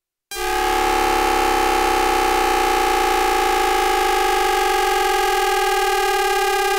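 Hanshin 5500-series motor car's VVVF inverter noise picked up by a radio, with the inverter's fundamental frequency overlaid in editing: a loud stack of steady electronic tones that starts abruptly about a third of a second in and begins to fall in pitch near the end as the inverter frequency drops.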